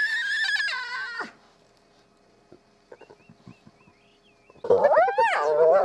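Spotted hyenas calling at their den. A long, high-pitched call levels off and stops about a second in. After a quiet pause, loud calls that rise and fall in pitch break out near the end.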